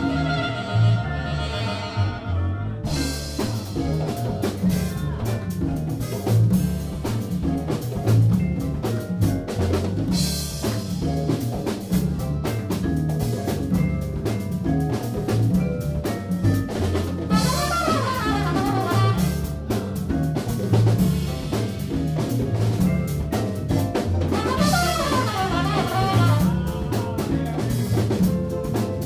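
Small jazz ensemble playing live: upright bass, drum kit and percussion, vibraphone and horns (tenor saxophone and trumpet). Held notes open it, then the full band with cymbals comes in about three seconds in over a steady pulsing bass line.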